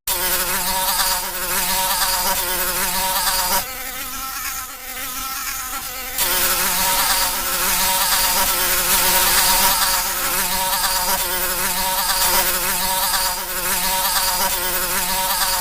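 Flies buzzing continuously, the buzz wavering in pitch; it drops quieter for about two and a half seconds, about four seconds in.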